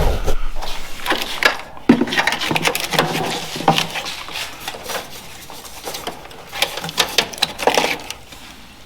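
Irregular knocks, clicks and clatter of parts and hand tools being handled while working on a pickup's front end, with a few sharper raps about two seconds in and again around seven to eight seconds.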